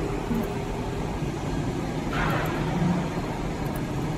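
Steady hum of workshop machinery with low droning tones, and a brief hiss about two seconds in.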